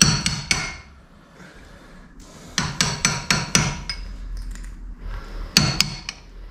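Hammer taps on metal at a car's front wheel hub, knocking a tight-fitting part of the brake assembly flush. The sharp, ringing taps come in three quick runs: a few at the start, about half a dozen in the middle, and three near the end.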